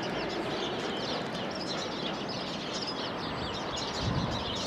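Many small birds chirping busily over a steady background rumble, with a brief low bump near the end.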